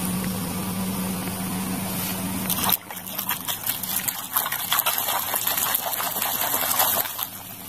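A steady low hum for the first few seconds, which stops suddenly; then a hand sloshing and scrubbing a toy in a basin of muddy, foamy water, with many quick irregular splashes.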